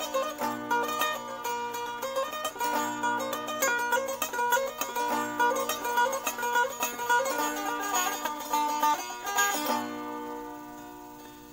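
Sape, the Borneo boat-lute, plucked in a quick melody over its steady drone strings; about ten seconds in the playing stops and the last notes ring and fade.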